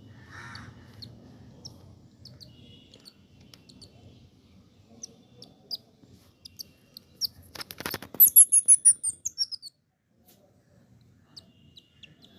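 Baby palm squirrel chirping: scattered short, high chirps, then about eight seconds in a loud run of about ten quick chirps falling in pitch, right after a brief knock or rustle.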